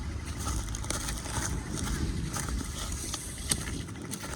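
Scattered crackles and snaps of fallen eucalyptus branches and leaves being handled, over a steady low rumble.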